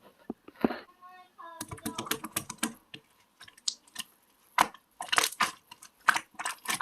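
Jelly slime being squeezed and pressed by hand, giving a dense, irregular run of sticky clicks, pops and crackles, with a brief squeak about a second in.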